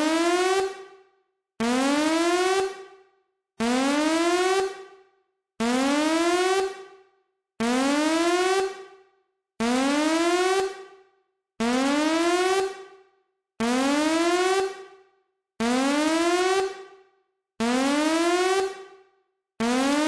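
Electronic alarm tone: a rising whoop about a second long that fades, repeating about every two seconds, like a warning siren sound effect.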